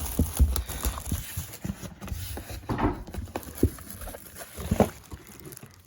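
Plastic wrap being pulled off a keyboard and crinkled, with irregular knocks and taps as it is handled.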